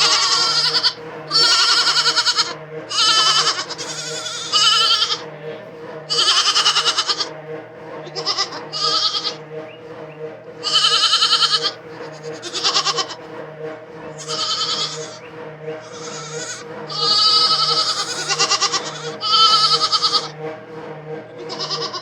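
Goats bleating over and over, about fifteen wavering calls each under a second long, some overlapping. Under the calls runs a steady low hum.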